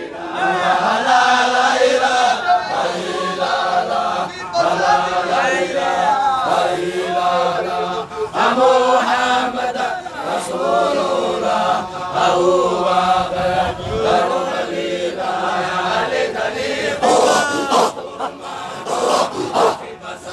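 A group of voices chanting a Sufi dhikr together in repeated, rhythmic phrases.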